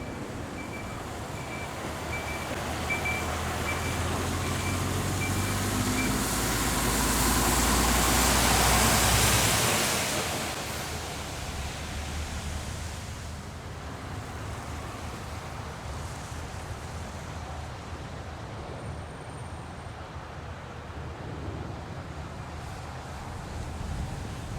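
Jet engines of a USAF C-5M Super Galaxy, four turbofans, passing close by: the noise swells to its loudest about eight seconds in, drops off quickly, then continues as a lower steady rumble.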